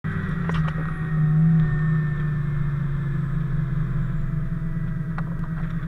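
Fire engine's diesel engine running steadily, a low even rumble heard from inside the crew cab, swelling slightly about a second in. A few light clicks come early on.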